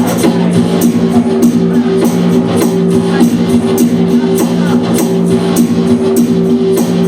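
Live band music: sustained low notes held under a steady beat of about two strikes a second.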